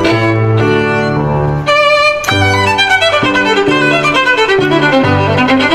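Background music: a violin melody over a bass line, with a run of notes falling and then climbing back up in the second half.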